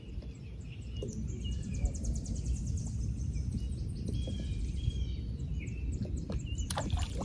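Wind buffeting the microphone in a steady low rumble, with birds chirping and trilling over it. A few sharp clicks near the end.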